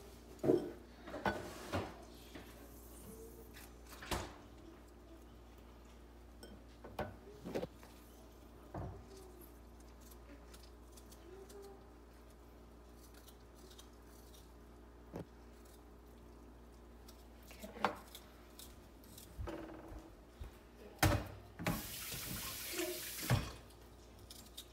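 Kitchen handling sounds: scattered knocks and clicks of containers and utensils on a countertop over a faint steady hum, with a short rush of running tap water near the end.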